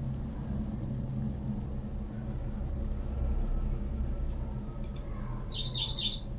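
Steady low rumble, with a small bird chirping about three times in quick succession near the end.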